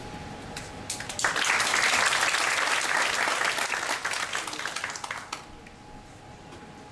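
Audience applauding: a few scattered claps about a second in, quickly filling into full applause that dies away after about four seconds.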